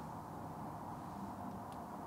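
Quiet, steady low background hum with a faint low tone and no distinct events: ambient room tone.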